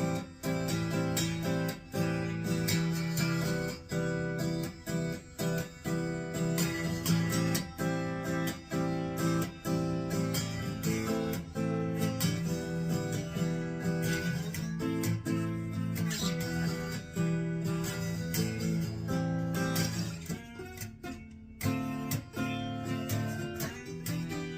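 Electric guitar played on its neck pickup, whose ceramic magnets have been replaced with neodymium discs, through an amp modeler set to a '65 Deluxe model. Chords and notes ring out with frequent pick strokes, thinning briefly near the end.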